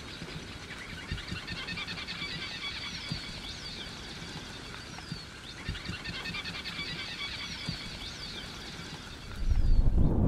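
Birds chirping and trilling in a dense, steady chatter, with short high whistled calls now and then. Near the end a sudden gust of wind hits the microphone with a loud low rumble.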